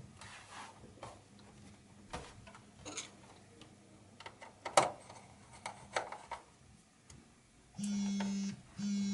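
Scattered light clicks and taps of a screwdriver and plastic cover on a Dell Vostro 3560 laptop's bottom panel, with one sharp click about five seconds in. Near the end a phone vibrates with two buzzes, each about half a second long.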